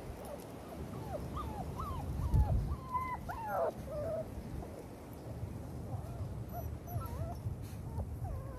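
Six-week-old XL pitbull puppies whimpering and yipping in short, high whines. The whines come thick for the first few seconds, thin out, then return as a few scattered cries near the end.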